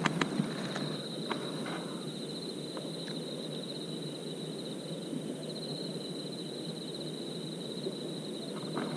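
Crickets trilling steadily over a low, even background noise, with a few light clicks near the start.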